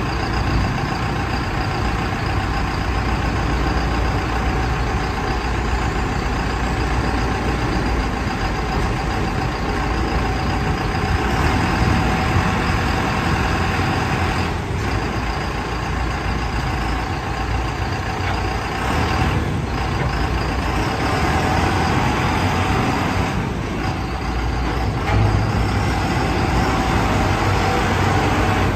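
LUTON LT-4.0 self-loading concrete mixer's diesel engine and machinery running steadily, with a steady whine over the engine noise.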